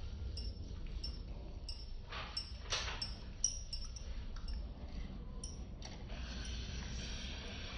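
Close-miked eating sounds: a run of small wet mouth clicks and smacks while chewing, a few tenths of a second apart, with a sharper click or clink about three and a half seconds in.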